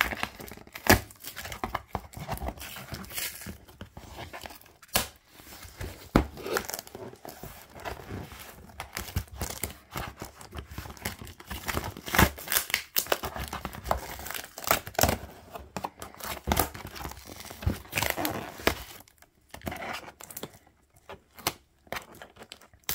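Brown packing tape and cardboard being peeled and ripped off a heavily taped cardboard box by hand, in irregular tearing rips and rustling, with a quieter pause near the end.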